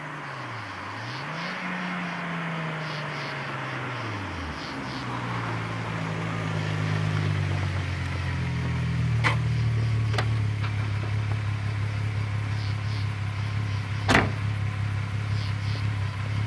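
VW Jetta MK2's VR6 engine and exhaust under way: its note dips, climbs again and then falls away over the first few seconds, then settles into a steady drone that grows louder. A few sharp clicks cut through, the loudest about fourteen seconds in.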